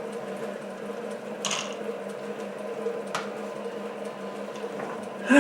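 SC2 mini lathe running with a steady motor hum. A short scrape comes about one and a half seconds in and a sharp click about three seconds in.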